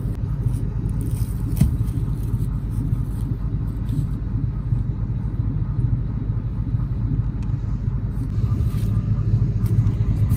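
Pickup truck engine idling steadily with a low rumble, and one short knock about a second and a half in.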